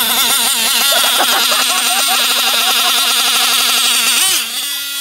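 Nitro RC car engine running at high revs, its pitch wavering up and down with the throttle. Near the end it dips briefly and then holds a steadier note.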